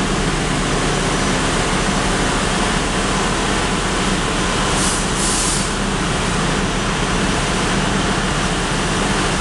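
Loud, steady ship engine-room machinery noise: a constant low hum under a broad roar from the large marine diesel plant. About five seconds in, a brief high hiss comes twice in quick succession.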